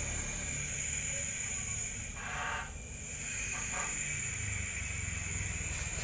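Refrigerated showcase's compressor running with a steady low hum while its refrigerant charge is set to 15 PSI. A short hiss comes about two seconds in.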